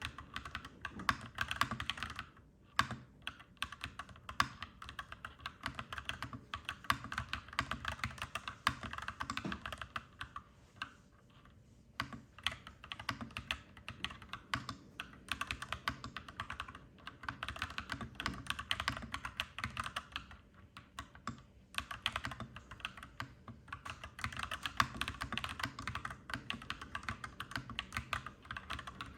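Typing on a clacky mechanical keyboard: a dense, fast run of key clacks that stops briefly about two and a half seconds in, again for about a second and a half around eleven seconds in, and once more near twenty-one seconds.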